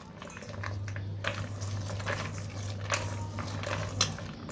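Fingers pushing finely chopped onion around a stainless steel bowl: scattered light clicks and rustles of onion pieces against the steel.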